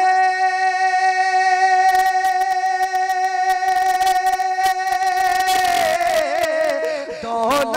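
A man singing a naat into a microphone, holding one long steady note, then breaking into a wavering run of ornamented notes about five and a half seconds in.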